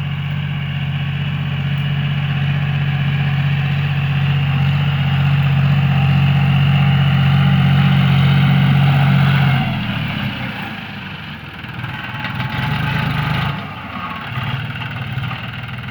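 John Deere 5045D tractor's three-cylinder non-turbo diesel engine running steadily at a raised speed. About ten seconds in, the throttle is pulled back and the engine settles lower and less evenly.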